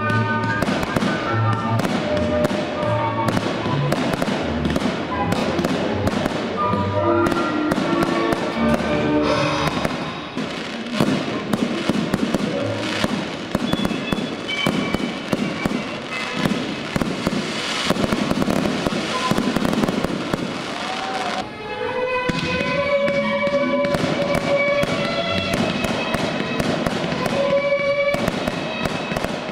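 Fireworks display bursting and crackling in rapid succession, with music playing alongside.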